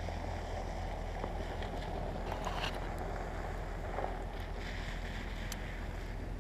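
Wind buffeting the camera microphone: a steady low rumble with an even hiss above it.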